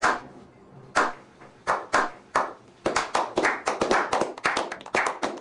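Slow clap by a small group of men: single sharp hand claps about a second apart at first, quickening from about three seconds in and thickening into steady applause.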